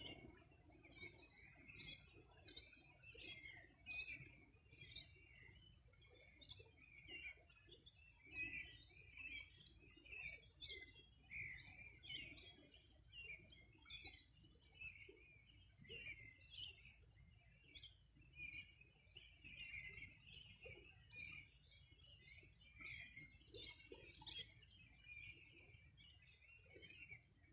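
Faint dawn chorus of many small songbirds chirping and trilling, overlapping without a break, over a low steady background rumble.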